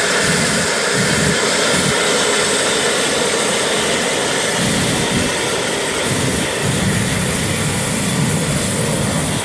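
Cessna Citation 560XL's twin Pratt & Whitney PW500-series turbofans running loud and steady as the jet taxis and turns its exhaust toward the microphone. The jet blast buffets the microphone in gusty low rumbles.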